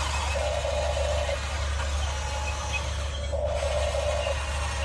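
Electric gear motors of a radio-controlled toy excavator whirring in runs of about a second, twice, over a steady low hum.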